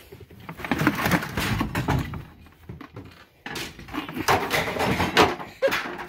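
Stacked plastic buckets, pots and trays rattling and knocking together on a cart as it is pushed along, in two spells with a short pause about three seconds in.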